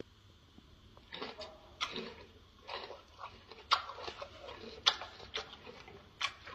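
A gorilla chewing a mouthful of raw red pepper: short, irregular crunching sounds about every half second, with a few sharper clicks.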